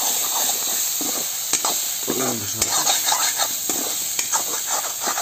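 Onion-and-spice masala paste sizzling in hot oil in a steel kadai while a metal ladle stirs it, scraping and clicking against the pan. This is the masala being fried until it browns.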